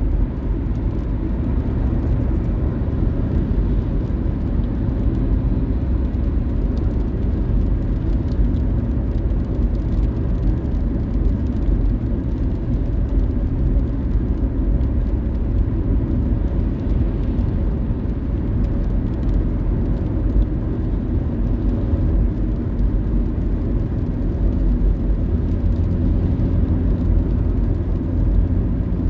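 Steady road noise inside a moving car's cabin: a low rumble of tyres and engine, growing deeper near the end.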